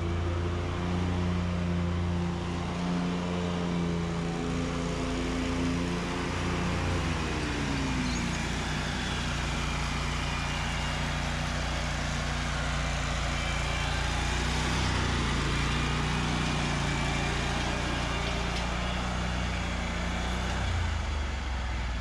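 Stand-on zero-turn lawn mower's engine running steadily while mowing; its pitch drops about seven seconds in, then holds steady.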